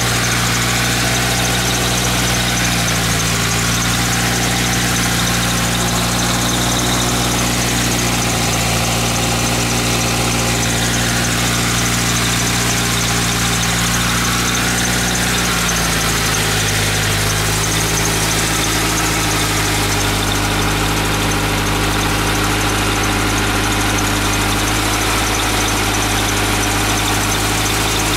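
Mitsubishi Eclipse GSX's turbocharged 2.0-litre four-cylinder engine idling steadily. About halfway through, the idle speed drops a little and then holds.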